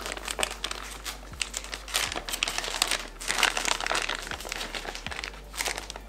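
Packaging being handled and unwrapped: irregular crinkling and rustling with many small clicks and taps.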